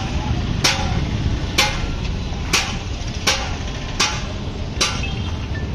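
Six sharp knocks at a steady pace of about one a second, each with a short ring, over a steady low rumble.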